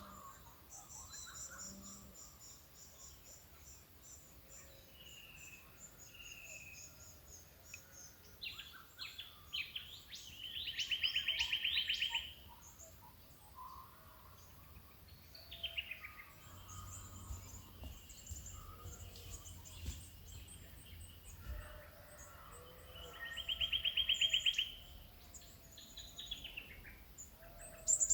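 Dawn chorus of Australian bush birds: several birds chirping and whistling at once, with high rapid chirp series and one bird's loud, fast trill that comes twice, about thirteen seconds apart.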